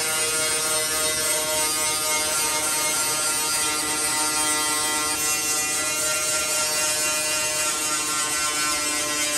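Handheld angle grinder running under load, its disc grinding down welds on the sheet-steel cab corner of a 1986 Ford F150: a steady high motor whine over the rasp of abrasive on metal.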